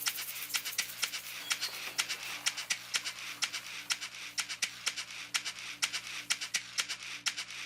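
Rapid, irregular sharp clicks, several a second, over a faint steady hum.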